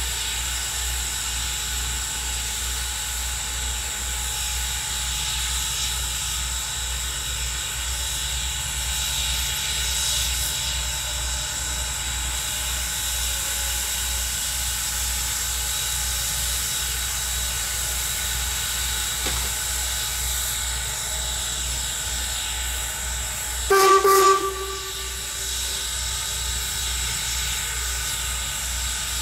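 Norfolk & Western 475, a 4-8-0 steam locomotive, standing with a steady hiss of steam over a low regular pulsing. Near the end its steam whistle gives one short, loud blast.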